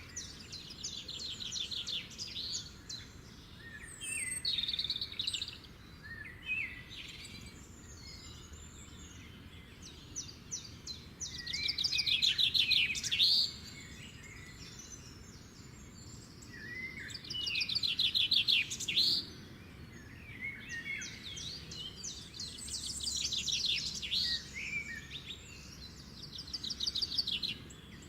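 Songbird singing: bursts of rapid high trills and chirps, a new phrase every few seconds, over a faint steady background hiss.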